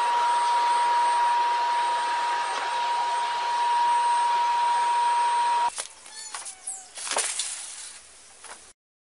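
Loud steady machine rush with a single high whine, like a motorised household appliance running, cutting off abruptly about six seconds in; a few quieter knocks and clicks follow.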